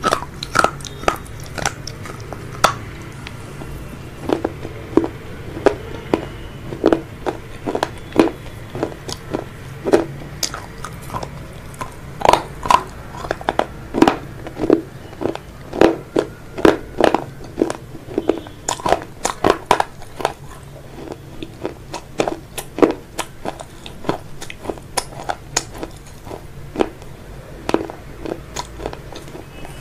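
A person biting and chewing crispy fried chicken close to the microphone: a quick run of sharp crunches, thickest and loudest in the middle.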